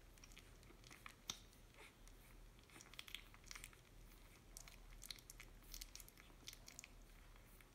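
Faint, irregular wet smacking and clicking of two-week-old Boston terrier puppies suckling at their mother's teats.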